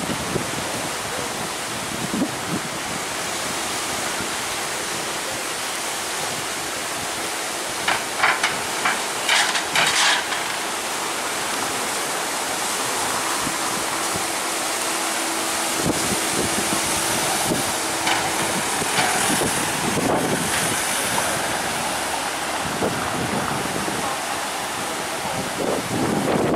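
Wind buffeting the microphone over street traffic noise, with a few short sharp sounds about eight to ten seconds in.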